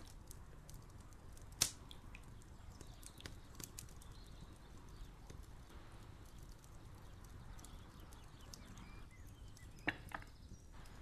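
Quiet background ambience with a low rumble and many faint scattered ticks, broken by a sharp click about one and a half seconds in and another near the end.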